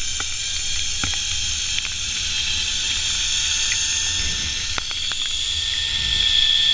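Zipline trolley pulleys running along the steel cable: a steady high hiss and whine that climbs in pitch and grows louder toward the end as the rider speeds up, with a few light clicks. Wind buffets the microphone underneath.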